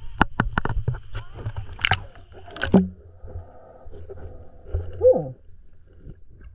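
Water splashing and sloshing around a camera held at the surface of a shallow stream, with a run of sharp splashes and a loud plunge as it goes under a little under three seconds in. After that comes the muffled, murky sound of the camera underwater, with a short bubbling gurgle about five seconds in.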